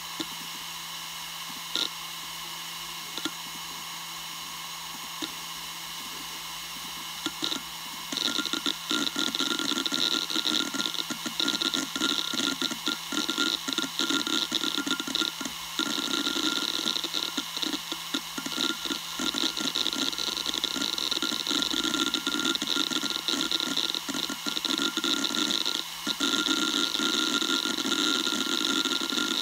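Western Digital Raptor WD1600ADFD 10,000 RPM hard drive spinning with a steady hum and a few single clicks. About eight seconds in, its heads begin seeking continuously: a louder, rapid clicking buzz that keeps going with brief pauses.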